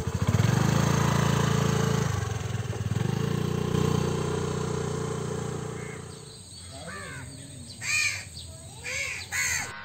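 A two-wheeler's engine running past, its pulsing sound fading away after about six seconds, then crows cawing several times near the end.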